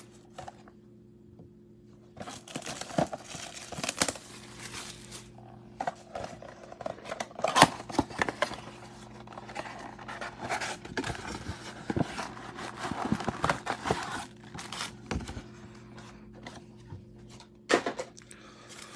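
Plastic shrink wrap crinkling and tearing off a cardboard trading-card box, then the cardboard lid being pried open and the card packs handled. The sound is irregular rustling with sharp clicks and snaps, after about two quiet seconds at the start.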